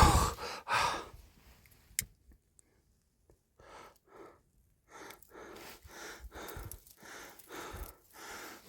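A person breathing in quick, short gasps, about two a second, after a loud breath at the start.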